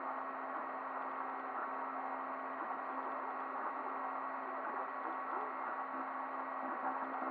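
3D printer running a print: a steady fan hum, with short, shifting motor tones as the print head moves.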